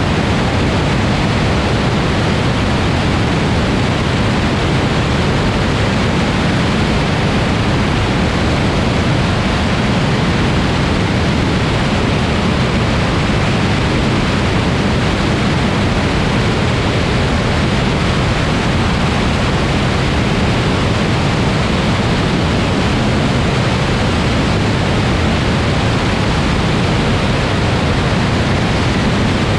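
Steady, loud rush of airflow over a camera mounted outside a Grumman Tiger light aircraft in cruise, with the low drone of the aircraft's single engine and propeller underneath.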